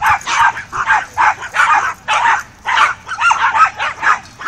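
Dogs barking and yipping in rapid succession, about three barks a second, with a few higher, drawn-out yelps about three seconds in.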